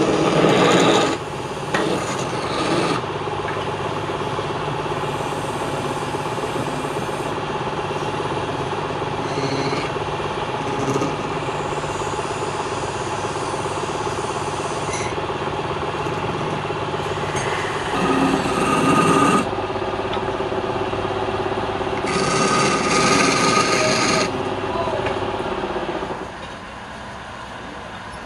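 Wood lathe running with a steady hum while a hand-held turning tool scrapes the end of the spinning workpiece. The scraping gets louder in a few passes, about 18 and 22 seconds in, and the sound drops quieter shortly before the end.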